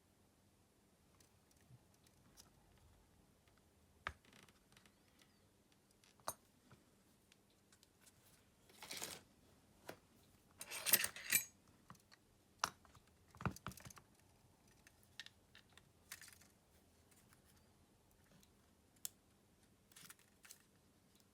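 Small hand tools clicking, tapping and scraping on a smartphone being taken apart: scattered light clicks throughout, with a few short scraping spells in the middle that are the loudest.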